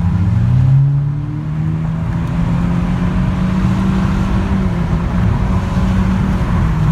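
Car engine heard from inside the cabin, its pitch rising in the first second as the car accelerates, then holding steady at freeway cruising speed, over a low rumble of road noise.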